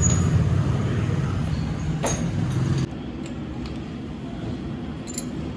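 A motor running with a steady low hum that cuts off abruptly about three seconds in, with a single sharp knock just before it stops.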